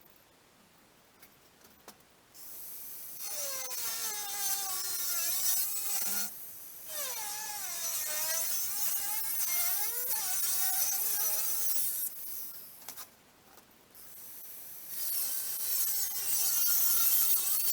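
Angle grinder with a cutting disc cutting through steel. It sounds as a loud whine that dips and rises in pitch as the disc bites and frees, over a hiss. It starts a couple of seconds in, stops briefly about six seconds in, pauses for about two seconds a little after twelve seconds, then cuts again.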